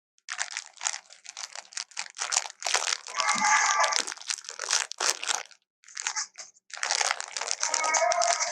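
Elephant chewing food: rapid, uneven crunching in several stretches with short pauses between. A pitched, squeaky sound comes through twice among the crunches, about three seconds in and near the end.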